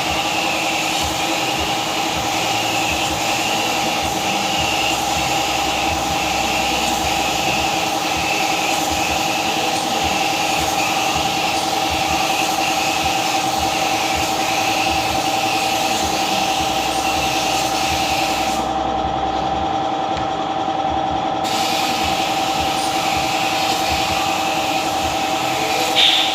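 A small motor-driven tool running steadily with a constant hum, with a brief louder hit near the end.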